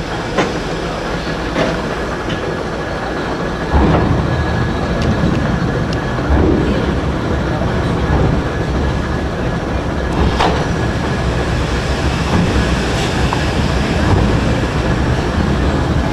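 Class 52.80 steam locomotive moving slowly at walking pace, its cylinder drain cocks hissing steam. A heavy low rumble sets in about four seconds in, with a few sharp metallic clanks, the loudest past the middle.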